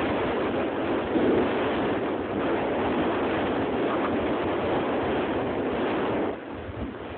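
Heavy North Sea surf breaking in a storm, a steady rushing roar, with gusting wind buffeting the microphone. It eases off somewhat near the end.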